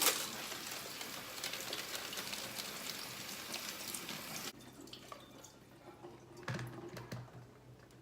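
Water running from a tap in an even hiss, cut off abruptly about four and a half seconds in, followed by a faint low hum and a few small clicks.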